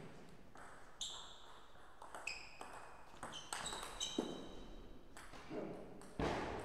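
Table tennis ball clicking off the rackets and the table in an uneven series of sharp, ringing pings during a rally. A louder sound comes near the end.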